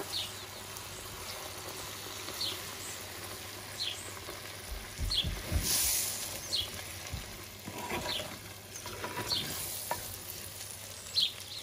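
Hot spiced oil sizzling as quartered lemons are stirred into it with a wooden spoon in a pot, with a few low knocks near the middle.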